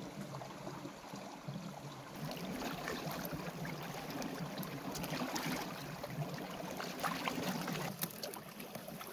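Shallow stream trickling over stones. From about two seconds in there is closer splashing with small irregular clicks and knocks as raw chicken pieces are washed by hand in a metal bowl of water.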